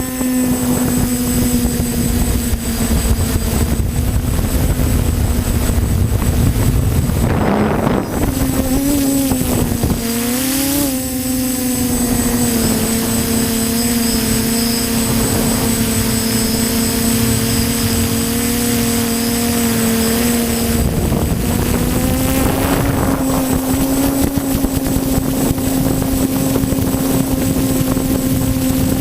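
TBS Discovery quadcopter's brushless motors and propellers whining steadily in flight, over a low rumble of wind on the microphone. The pitch dips and wobbles twice about a quarter to a third of the way through, then holds steady, stepping up slightly about three-quarters of the way in.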